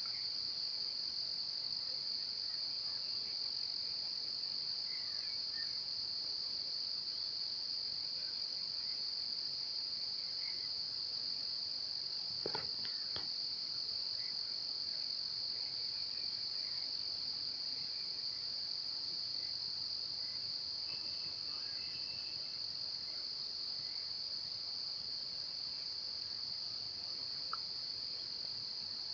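Steady, high-pitched, unbroken drone of insects, with a single brief knock about halfway through.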